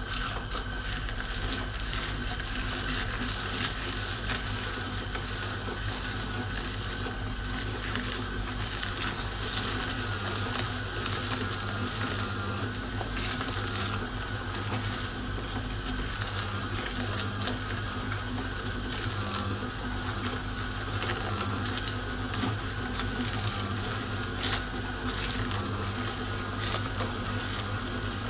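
Electric meat grinder running steadily, its motor humming with a constant whine while the auger crushes food with continual crackling and crunching and a few sharper cracks.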